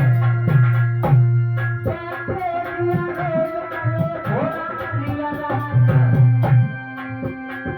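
Folk devotional music, mostly instrumental: a hand drum plays quick strokes under long held melody notes, with one sliding note about four seconds in.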